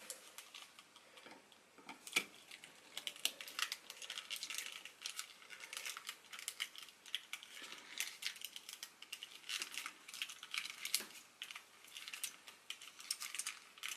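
Small screwdriver working at a tiny screw in a plastic figure's head, making an irregular run of faint clicks and scrapes as the tip catches and turns.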